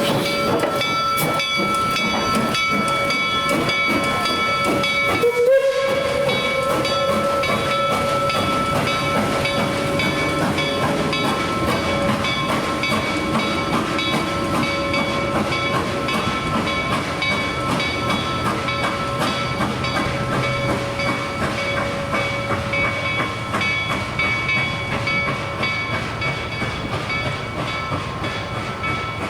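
A train rolling by with a steady high squeal of several held tones, which breaks off briefly about five seconds in, over rapid clicking of wheels on the rails and a low rumble.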